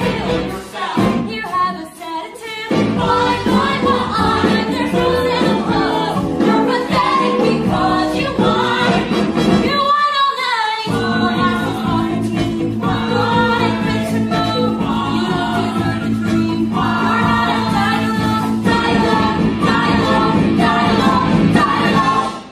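Ensemble cast singing a musical-theatre number in chorus with band accompaniment. About ten seconds in, the accompaniment drops away for a moment under a single gliding voice, then the full chorus comes back and holds a long final chord that stops abruptly.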